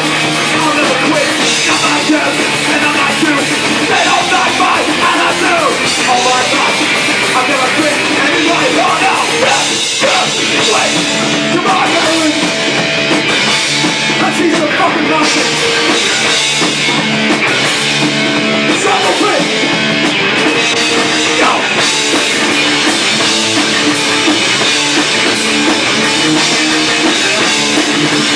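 A hardcore punk band playing live and loud: distorted electric guitars and a pounding drum kit, with the singer shouting into the mic.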